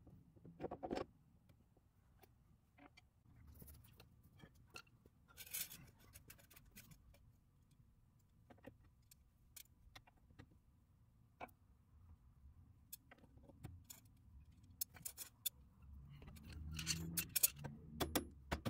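Light metallic clicks, taps and scrapes from fitting a new rear shock absorber into its mount on a Honda CR-V, with a busier run of clinks and a low rumble near the end.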